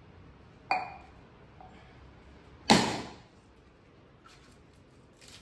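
A coconut being smashed against a hard stone floor: two sharp cracks about two seconds apart, the second much louder, each dying away quickly. A couple of faint clicks follow near the end.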